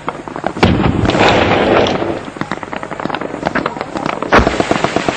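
Combat gunfire and explosions: a dense, rapid crackle of shots throughout, with a heavy explosion about half a second in that rumbles for over a second, and another loud blast near the end.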